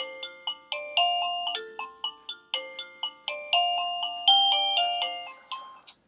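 AVANTEK CB-11 wireless doorbell receiver playing one of its chime melodies: a tune of short, quickly fading notes that stops just before the end. It is set off by its wireless push button, a sign that the button's signal has reached the receiver.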